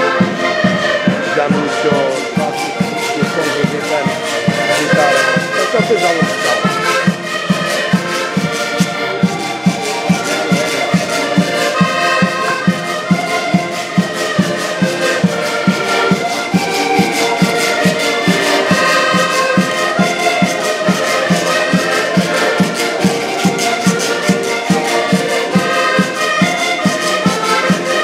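Several accordions playing a Portuguese folk tune together in held, overlapping chords over a steady beat.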